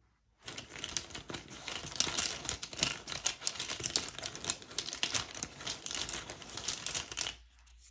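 A hand rummaging among small divination tiles to draw one: a dense run of rustling with rapid small clicks that starts about half a second in and stops shortly before the end.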